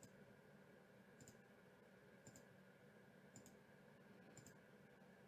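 Faint computer mouse button clicks, about one a second, each a quick double tick, against near silence.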